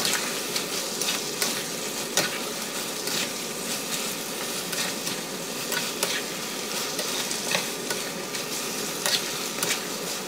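Spaghetti in tomato sauce sizzling in a frying pan as it is tossed with a spatula and wooden chopsticks. A steady sizzle runs throughout, with a short scrape or click of the utensils against the pan every second or so.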